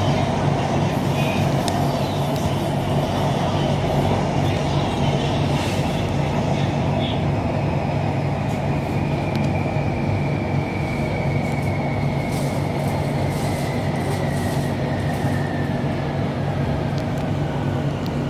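Inside a BTS Skytrain car running on elevated track: a steady rumble and hum. Over the second half, a faint electric motor whine falls in pitch as the train slows for its next station.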